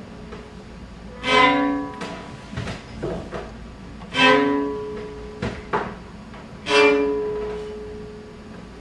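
Live music on a string instrument: three loud accented chords, each ringing out for a second or more, about two and a half seconds apart, with a few light knocks in between.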